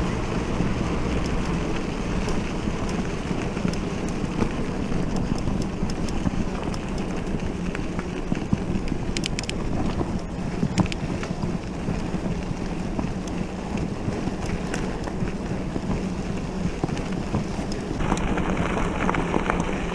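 Wind on the microphone over the steady noise of mountain bike tyres rolling on loose gravel, with a few sharp clicks about halfway through.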